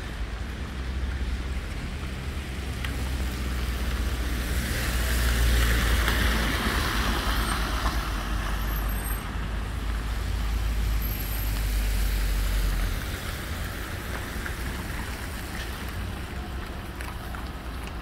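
Road traffic on a wet city street: tyres hissing on wet asphalt over a low engine rumble. The hiss swells about five seconds in as a vehicle goes by, and the rumble drops away about thirteen seconds in.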